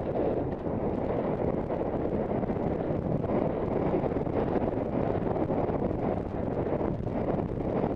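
Wind buffeting the microphone of a rider's helmet camera on a horse at the gallop: a steady, dense low rush.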